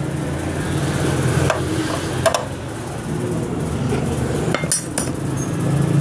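A few sharp metallic clicks and clinks of a steel hand tool working the bolts of a motorcycle's front brake caliper, over a steady low hum.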